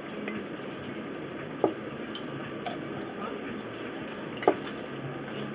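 Knife and fork cutting food on a ceramic plate: a few short scrapes and clicks over a steady background hiss. The two loudest are brief squeaks of the blade on the plate, about a second and a half in and again about four and a half seconds in.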